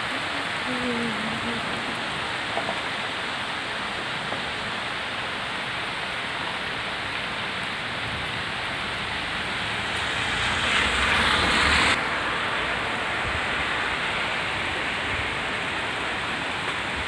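Steady heavy rain pouring onto trees and a wet road. A louder rush of noise swells about ten seconds in and cuts off abruptly about two seconds later, and a few faint short pitched calls sound near the start.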